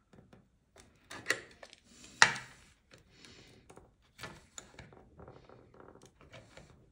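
Scattered clicks and knocks of plastic speaker parts being worked by hand with a small tool, with faint rustling between them; the sharpest knock comes a little over two seconds in.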